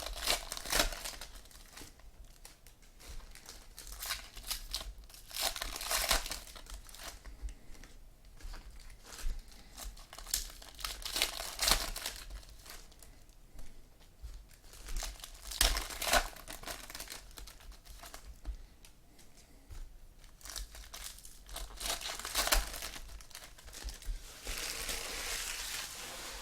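Wrapping on trading-card packs crinkling and tearing as they are opened, in bursts every few seconds, with a longer stretch of rustling near the end.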